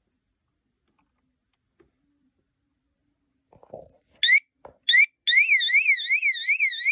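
Fire alarm sounder set off: after a brief clunk it gives two short chirps, then a loud continuous warbling tone that sweeps up and down about two and a half times a second.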